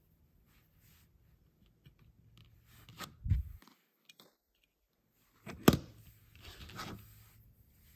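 Close-up handling of toys and their packaging: crinkling, tearing and scraping, with a dull thump about three seconds in and a sharp click a little before six seconds.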